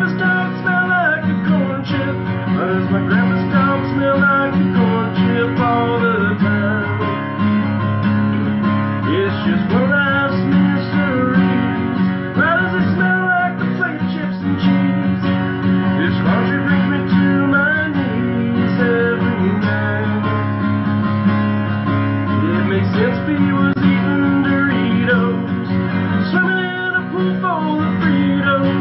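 Cutaway acoustic guitar strummed in a steady rhythm, an instrumental break in a song.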